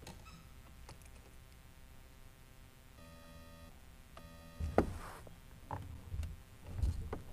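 Faint low rumble, then a few sharp knocks and clunks of gear against a plastic kayak hull from about two-thirds in, the first the loudest.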